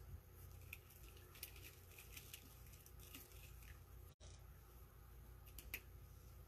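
Faint rustling and crinkling of deco mesh ribbon being folded and tied by hand, with a few soft scattered clicks over a low room hum.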